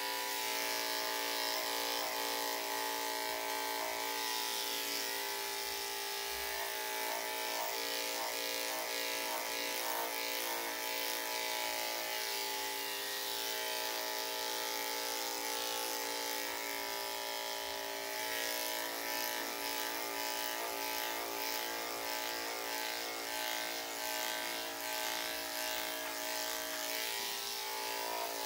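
Electric dog grooming clippers running with a steady buzzing hum, the blade crackling as it cuts through a heavily matted coat.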